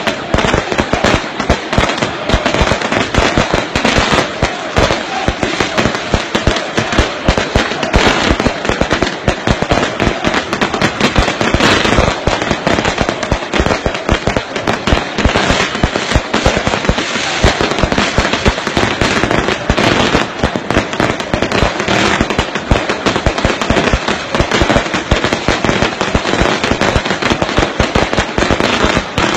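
Fireworks and firecrackers going off in a dense, continuous stream of sharp pops and crackling bangs, with no pause.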